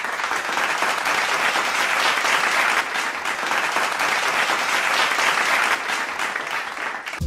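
Audience applauding, an even wash of clapping that cuts off abruptly at the very end.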